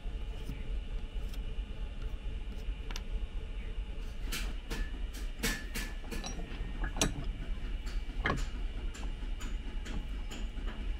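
A handful of scattered sharp metal clinks and knocks, a few of them ringing briefly, clustered in the middle, over a steady low hum: metal tools and workpiece being handled in a smithy.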